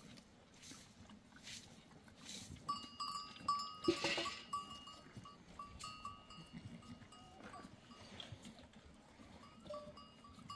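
A goat herd being hand-milked: milk squirts hiss into a pan in a slow rhythm at first, then bells on the goats ring and jingle. A short goat call about four seconds in is the loudest sound.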